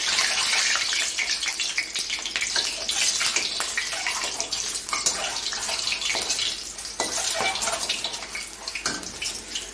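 Whole boiled eggs frying in hot mustard oil in a kadai: a steady sizzle with constant spitting crackles, with the odd scrape of a metal spatula turning them against the pan.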